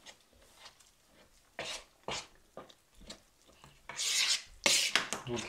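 Flour and semolina being worked in a bowl, first by hand and then with a spoon: a few short scraping strokes, then louder, longer scraping near the end.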